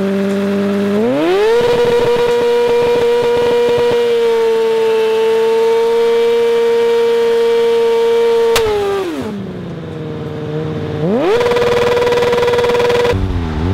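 Kawasaki ZX-6R 636's inline-four engine revving up about a second in and held at high revs through a burnout, its rear tyre over-inflated to 7 bar. About eight and a half seconds in, a sharp bang as the rear tyre bursts, and the revs drop. The engine revs up once more briefly and falls again near the end.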